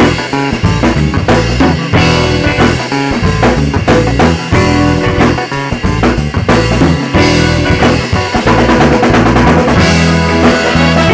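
Upbeat background music with a drum kit beat and a bass line.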